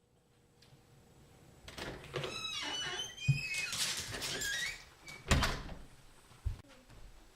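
A door creaking and squeaking for a few seconds, then a loud thump about five seconds in and a softer knock just after.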